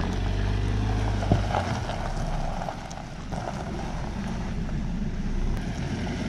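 Jeep Wrangler's engine running as the vehicle drives off, a steady low sound with wind noise on the microphone.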